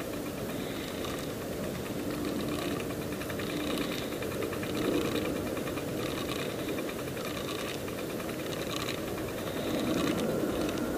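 A Line Dancer rod-action device on the fishing rod running, a steady mechanical whir with a faint rattle as it works the lure.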